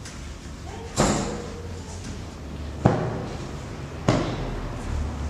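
Three sharp bangs, each followed by a short ring, about a second in, near the middle and about four seconds in. They are knocks from handling the loading gear as the cloth bundles are loaded.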